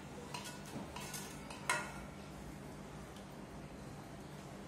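Metal serving spoon clinking and scraping against a steel curry pot as food is ladled out: a few light clicks, then one sharp ringing clink a little under two seconds in.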